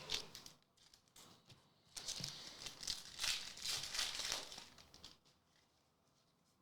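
Foil booster-pack wrapper crinkling and tearing as a pack of trading cards is opened: a short rustle at the start, then about three seconds of crinkling from two seconds in.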